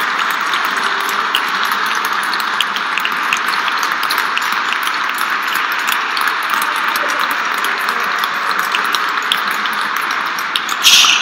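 Congregation applauding, a steady patter of clapping, with a short burst of louder hissing noise near the end.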